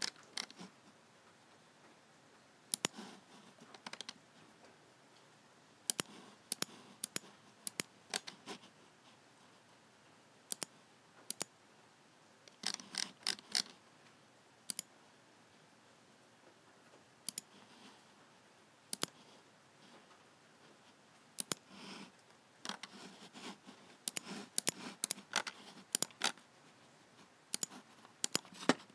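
Logitech G7 computer mouse buttons clicking at irregular intervals: single clicks and quick runs of several clicks, separated by pauses of a second or more.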